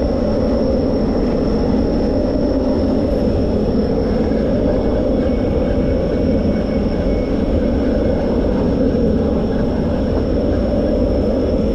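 A boat's engine running steadily as a low, continuous rumble, with a faint steady high whine over it.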